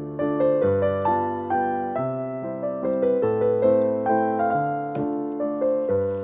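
Background piano music: a gentle melody of sustained notes with chords.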